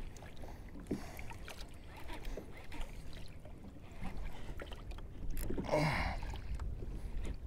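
Small waves lapping and slapping against a plastic fishing kayak's hull, with light clicks and knocks, and a brief louder sound about six seconds in.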